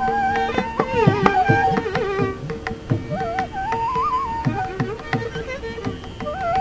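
Carnatic classical ensemble playing in raga Shanmukhapriya: a pitched melodic line with sliding gamaka ornaments over a held note, with steady mridangam and ghatam strokes beneath.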